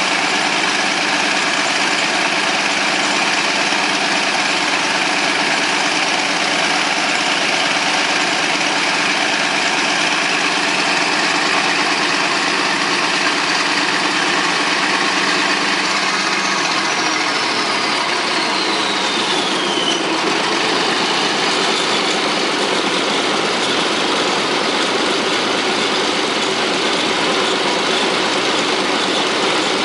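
Caterpillar D13000 diesel engine running steadily. Its tone shifts slightly a little past halfway, and just after that a faint high whine falls in pitch for a few seconds.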